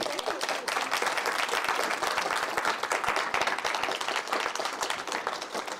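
Audience applauding, many hands clapping together; the applause starts all at once and thins out slightly near the end.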